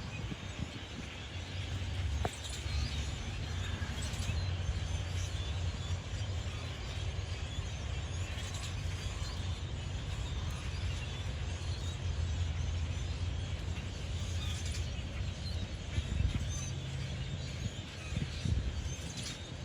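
A flock of birds chirping, over a steady low rumble.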